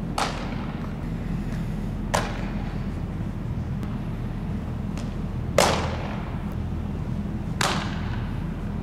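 A baseball smacks into a leather fielder's glove four times, each a sharp pop roughly two seconds apart, with a short echo in a large indoor hall. The third pop is the loudest. A steady low hum runs underneath.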